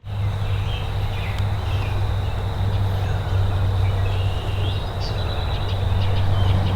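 Outdoor creek-side ambience: a steady rushing noise with a low hum underneath, a faint steady high tone, and a few scattered bird chirps.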